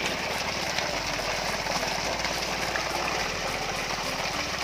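Small petrol engine of an Alkon portable water pump running steadily at throttle while it pumps, mixed with water gushing out of the PVC discharge pipe.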